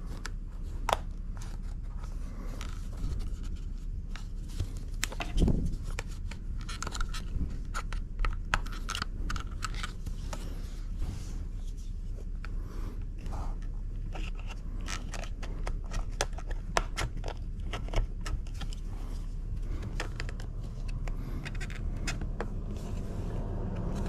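Scattered clicks, taps and scrapes of plastic parts of a steering wheel being pried apart and handled, over a steady low hum.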